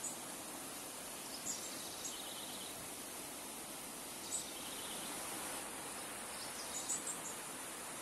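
Shallow river water flowing steadily over stones, an even rushing babble. A few short high chirps break in over it several times, most clustered near the end, typical of small birds.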